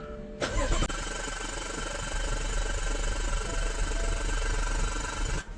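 BMW N55 turbocharged inline-six turned over on its starter motor with the injectors disconnected, so it cranks without firing, for a compression test. The cranking starts about half a second in, runs steadily for about five seconds and stops suddenly near the end.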